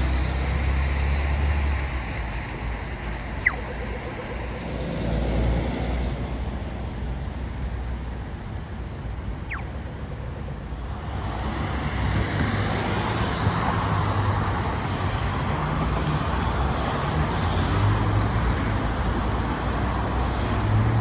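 Road traffic on a busy street: a continuous rumble of passing vehicles, with one sharp click about three and a half seconds in.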